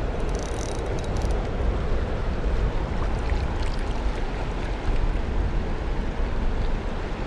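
Steady rushing noise of flowing river water, with a deep rumble of wind buffeting the microphone.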